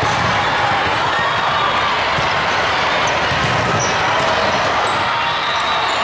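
Steady din of a large hall full of volleyball courts in play: volleyballs being hit and bouncing, over a constant murmur of many voices.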